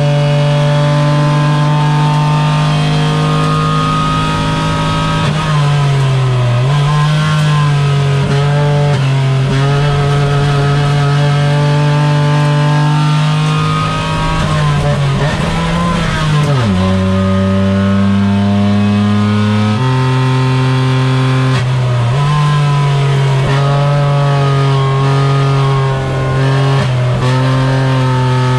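Renault Twingo Cup race car's engine heard from inside the cabin, working hard on track: revs fall and rise through braking, downshifts and acceleration. Electronic music with a steady bass line plays over it.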